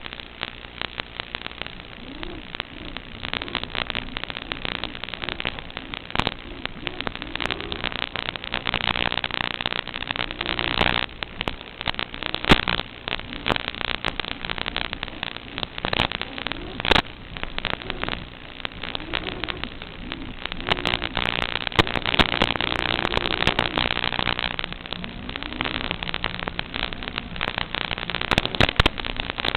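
Crackling, hissing static with frequent sharp clicks, a few of them loud, on the audio of an analog FPV video link as recorded by SkyZone goggles' DVR, with faint wavering tones underneath.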